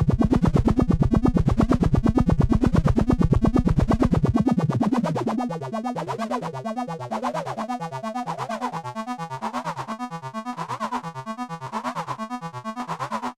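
MS-20-type analog monosynth playing a fast, repeating sequence of short notes. About five seconds in the deep bass drops away and the sound turns quieter and thinner, the filter opening brighter toward the end before it cuts off suddenly.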